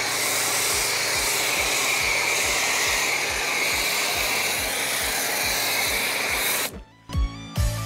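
Pressure-washer foam cannon spraying shampoo in a steady hiss, cutting off suddenly near the end.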